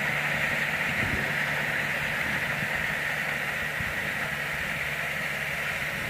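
Kubota DC60 combine harvester's diesel engine and machinery running steadily, a steady drone with a strong hiss. It slowly fades as the machine moves away.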